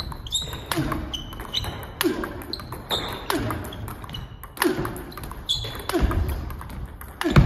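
Table tennis multi-ball drill: a steady run of sharp clicks as balls are fed, bounce on the table and are hit back with forehand drives, with a new ball about every second, along with thuds of footwork on a wooden floor.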